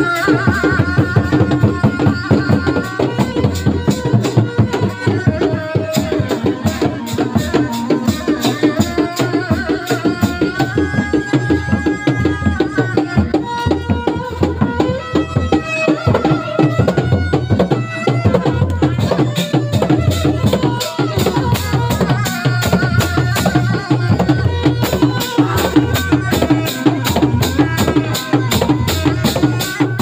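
Sundanese reak ensemble playing: dogdog frame drums beat a fast, driving interlocking rhythm, with a stepping melody of held notes over the top.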